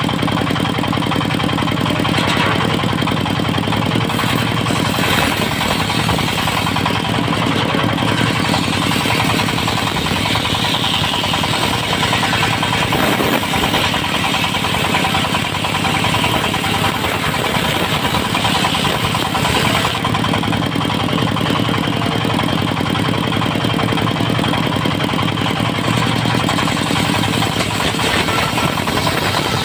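Dongfeng diesel engine driving a portable circular sawmill, running steadily at an even, loud level.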